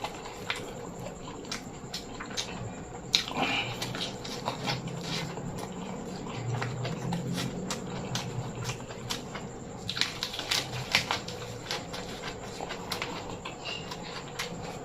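Close-miked chewing and wet mouth sounds of someone eating, with many short clicks and smacks, busier about three seconds in and again about ten seconds in.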